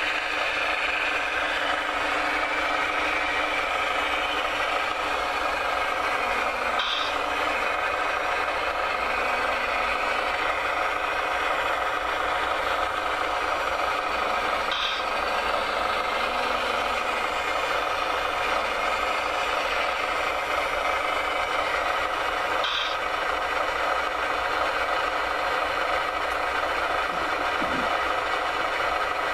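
Radio-controlled model construction machine running steadily with a whine of motor and gears, rattling as it works. A short click comes about every eight seconds.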